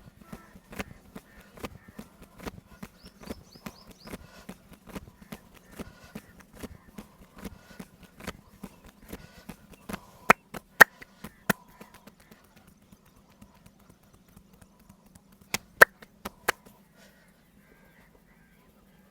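Hands striking the body in a percussive massage: a run of rhythmic slaps, one to two a second, over a low steady hum. Several much louder, sharper smacks stand out about ten seconds in and again around fifteen to sixteen seconds, before the strikes stop.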